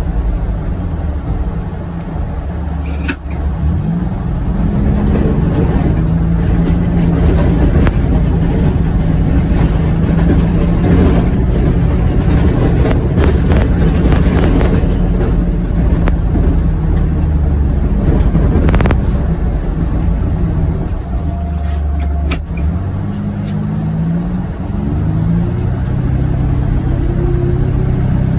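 John Deere Gator UVX 835M utility vehicle's engine running steadily while plowing snow, with a few short knocks along the way. Its pitch climbs in the last few seconds as it speeds up.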